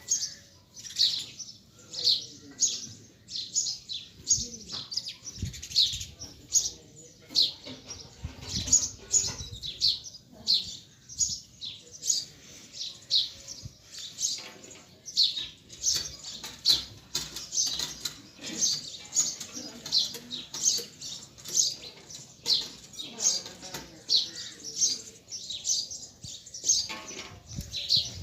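Small birds chirping: a steady string of short, sharp, high chirps, about two a second, with faint low rustling underneath.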